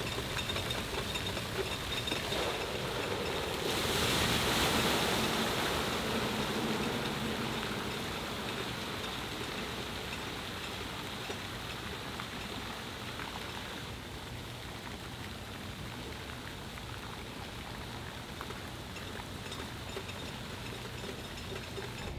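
Water pouring and splashing from the spouts and jets of a splash-pad water-play structure, a steady rush that grows louder for a few seconds about four seconds in.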